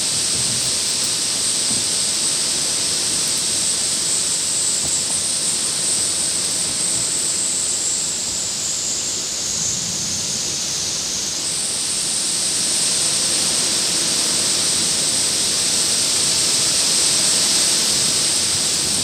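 Heavy rain falling steadily, a dense hiss that grows a little louder over the last few seconds as a downburst windstorm begins.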